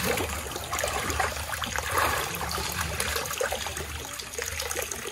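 Water running and trickling steadily.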